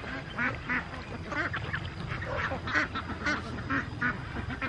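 Waterfowl quacking: a string of short calls, about two a second.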